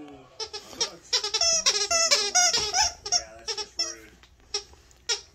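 A plush squeaky toy squeaking over and over as a dog chomps on it, a quick run of squeaks with a wavering pitch that thins out after the first few seconds.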